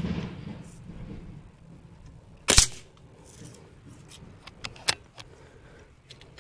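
AF500 PCP air rifle firing a single shot about two and a half seconds in: one sharp crack with a short tail. About two seconds later come two lighter metallic clicks of the bolt being worked to cock it, with a brief low rumble at the very start.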